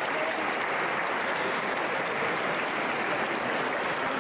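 Audience applauding steadily: dense, continuous clapping of many hands.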